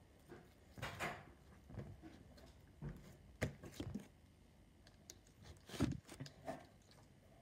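Slime being squeezed, dropped and pressed on a table: a series of short, soft smacks and squelches, the loudest about a second in, at about three and a half seconds and near six seconds.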